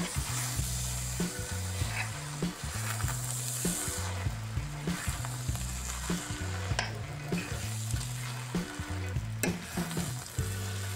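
Spaghetti, egg and wurstel sizzling as they fry in a stainless steel pan while being stirred with a spoon, with a few sharp clicks of the spoon against the pan. Background music with a bass line plays throughout.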